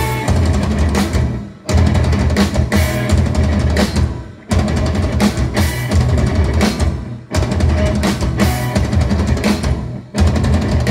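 Live indie rock band playing loud, with the drum kit pounding and cymbals crashing. The full band plays in blocks that break off every few seconds, then come back in.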